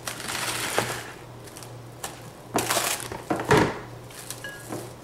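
Clear plastic cling wrap pulled off its roll, torn off and crinkled over a glass mixing bowl: a rustling pull, then two louder crackling bursts, the loudest about three and a half seconds in, and a few small clicks.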